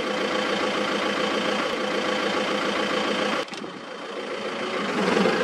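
Vehicle engine idling steadily. About three and a half seconds in it drops sharply, then builds back up.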